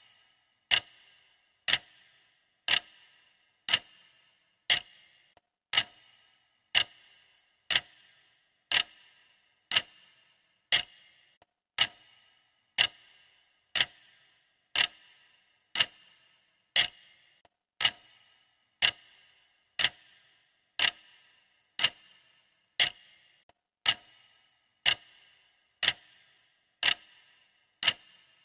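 Clock ticking steadily, one sharp tick a second, each with a short ringing tail: the countdown timer's ticking sound.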